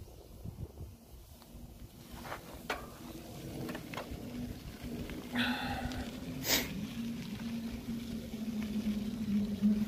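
Small quadcopter drone's propellers humming at a steady pitch, growing louder, with a second close tone joining near the end. A few sharp clicks and a short high call are heard about halfway through.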